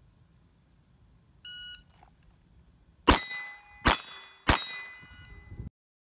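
A short electronic beep, then three revolver shots fired in quick succession, each followed by steel plate targets ringing.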